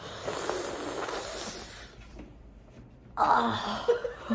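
A woman's breathy non-speech sounds at the cold: a long hissing breath, then a short, louder shivering groan about three seconds in.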